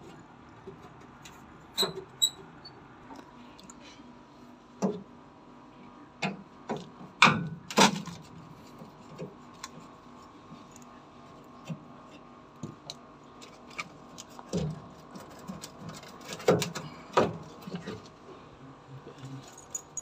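Irregular clicks, taps and knocks of a screwdriver and hands working at screws in the plastic housing of an LG top-loading washing machine. The loudest knocks come about seven to eight seconds in.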